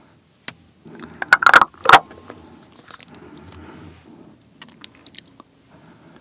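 A raw egg cracked open: a few loud, sharp cracks of the shell about a second and a half in, then quieter shell handling as the yolk is separated out, with a few small clicks near the end.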